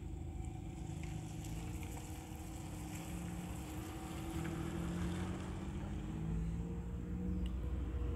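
An engine running steadily, a low hum that drifts slightly in pitch and grows a little louder in the second half.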